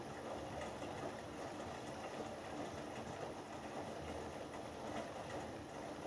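Hoover Dynamic Next DXA610IW3 front-loading washing machine tumbling its wet load during the main wash of a cotton 60 cycle: the drum turning with clothes and water swishing, and a steady low motor rumble underneath.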